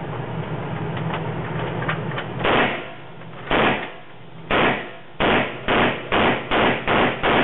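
Gunshots from a handgun echoing in an indoor firing range: three shots about a second apart, then six quicker shots in a row.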